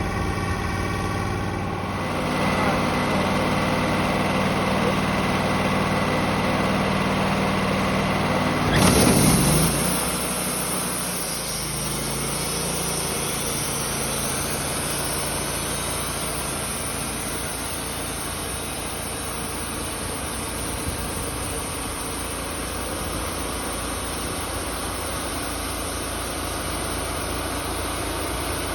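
Wood-Mizer LT28 portable bandsaw mill's engine running steadily. About nine seconds in there is a brief louder swell, after which the sound shifts to a lower, steadier running with more hiss.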